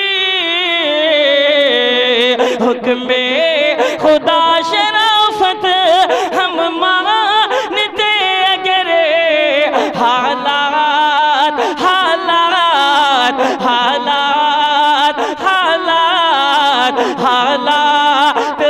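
Male voice singing a naat: a long drawn-out melodic passage of held notes that waver and slide in pitch.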